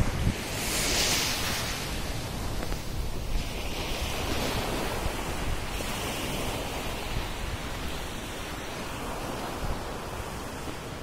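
Sea waves breaking and washing up a sandy shore, with hissing surges about a second in and again a few seconds later, and wind buffeting the microphone with a low rumble.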